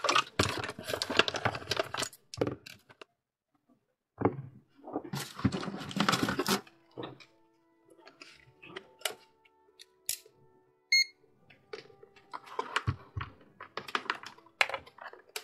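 Desk handling noise: bursts of rustling and small clicks and knocks as a lithium 18650 cell and a digital multimeter are picked up and set down. There is one short electronic beep past the middle, with faint background music underneath.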